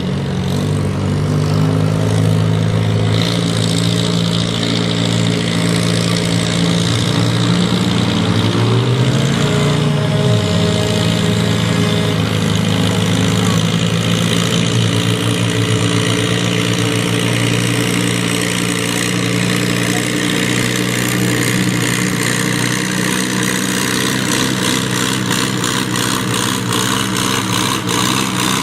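Farm tractor's diesel engine running loud and steady under heavy load, pulling a weight-transfer sled, its pitch dipping and climbing again briefly about a third of the way in.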